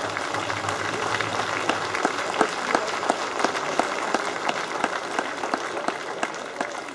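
Crowd applauding, many hands clapping at once; the clapping is fullest in the middle and thins out toward the end.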